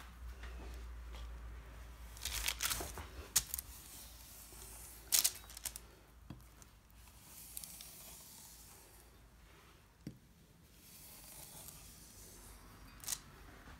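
Kitchen knife scoring a slab of sesame brittle on parchment paper: a handful of sharp clicks and crunches as the blade presses through, with quieter scraping as it is drawn along between them.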